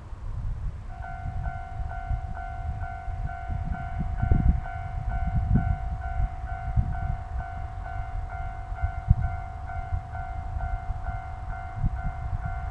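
Level-crossing warning bell starting about a second in and ringing a steady repeating ding about twice a second, the signal that a train is approaching. An uneven low rumble runs beneath it.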